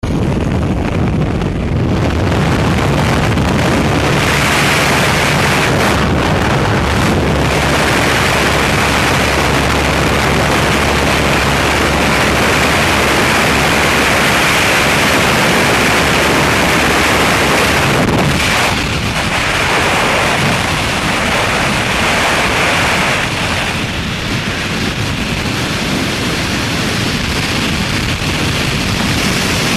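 Wind rushing past an open aircraft door with the steady hum of the plane's propeller engines, changing about eighteen seconds in to continuous freefall wind noise on a helmet camera's microphone.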